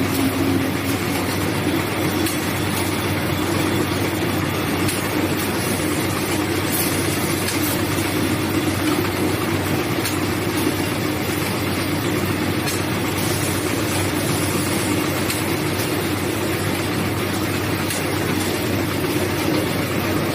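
Automatic dinner-napkin packing machine running steadily, a continuous mechanical whir with faint scattered ticks.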